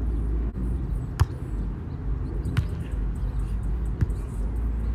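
A volleyball being hit by hand three times in a rally, each a sharp slap about a second and a half apart, over a steady low rumble.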